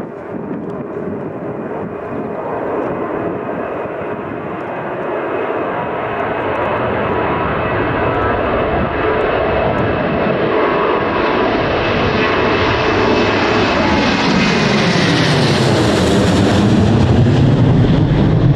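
An airliner's engines growing steadily louder as the plane approaches and passes close by, loudest near the end, with a sweeping, shifting tone as it goes past.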